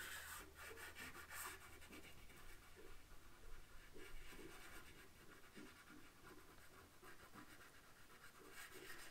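Faint scratching of a blue chalk pastel stick stroked in short, repeated strokes across paper.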